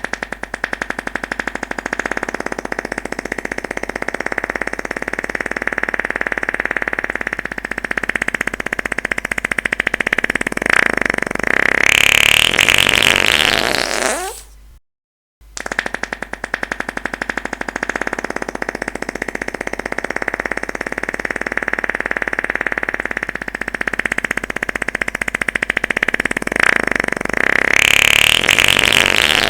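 Long fart sound effect: a sustained fluttering buzz that climbs in pitch and gets louder near its end, then trails off. It plays twice, with a half-second break in the middle.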